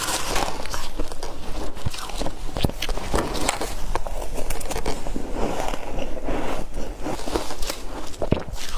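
Crunchy shaved ice being bitten and chewed close to the microphone: a continuous run of crisp crunches and crackles.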